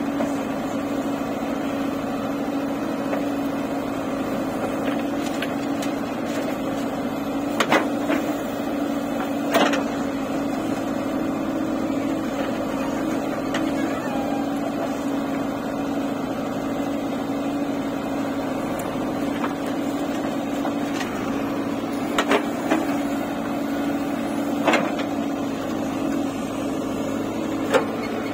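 JCB 3DX backhoe loader's diesel engine running steadily under load as the backhoe digs, with a few sharp knocks from the bucket and arm working the stony soil.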